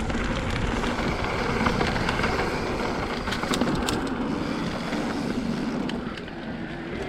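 Riding noise of a Specialized Levo Pro electric mountain bike on a dirt trail: a steady rolling rumble from the tyres and bike, with scattered sharp clicks and rattles now and then.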